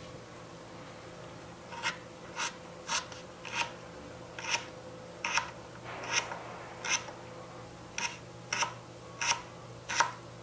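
Tiny knife chopping a carrot into small cubes on a miniature wooden cutting board: about a dozen crisp chops, roughly two a second, starting about two seconds in.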